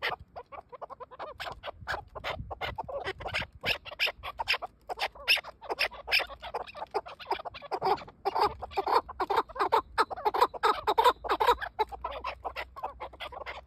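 Chukar partridges calling: a rapid, continuous run of short repeated notes, growing louder about two-thirds of the way through.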